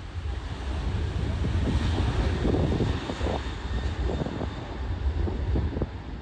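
Jet airliner's engines running in a steady, rumbling noise that swells for a couple of seconds, with wind buffeting the microphone.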